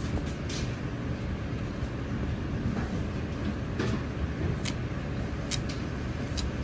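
Chinese cleaver slicing kabocha squash on a plastic cutting board: a handful of short sharp taps, irregularly spaced, as the blade cuts through and meets the board. Under them runs a steady low rumble, the loudest sound.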